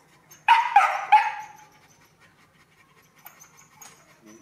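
A puppy gives three short yelps in quick succession while ticks are picked from its paw with metal tweezers.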